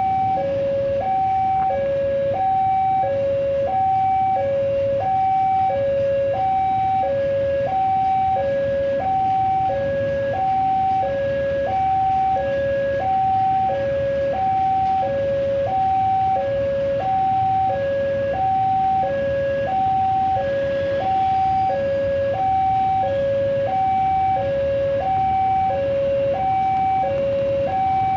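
Railway level-crossing warning alarm sounding an electronic two-tone chime, a lower and a higher tone alternating about once a second. It warns that a train is approaching, with the crossing gates closed.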